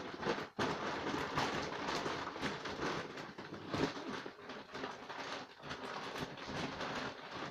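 Continuous rustling and crackling close to the microphone as a sack of dry dog feed is handled.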